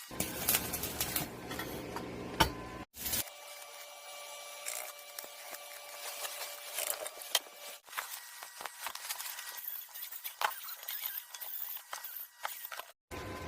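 Scattered light metallic clinks and knocks from metal stove parts being handled, with two brief dropouts where the sound cuts off.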